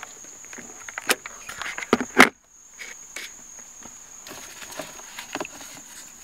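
Handling noise of a car's shift boot and plastic console trim being worked up off the shift lever: scattered plastic clicks and rustles, with a sharp knock about two seconds in and a brief drop-out just after. A faint steady high-pitched whine runs underneath.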